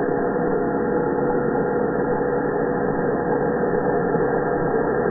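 Electric angle grinder running steadily, a constant mechanical drone with one strong held tone.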